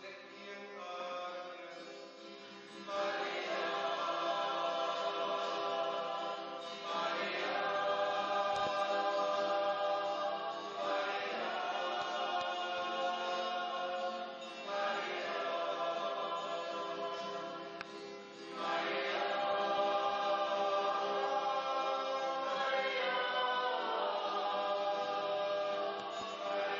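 A group of voices singing a Christmas carol together, phrase after phrase, each phrase about four seconds long. The singing starts about three seconds in, after a quieter stretch.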